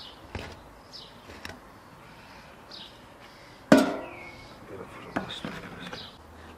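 Metal baking pans knocking and clanking against an iron rack inside a tandoor as they are handled and set in place, with one loud ringing clank about halfway through and lighter knocks around it.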